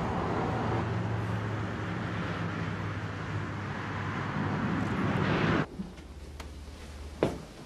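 Motorway traffic rumbling by, swelling as a vehicle draws near, then cut off abruptly about five and a half seconds in. What follows is much quieter, with one sharp knock near the end.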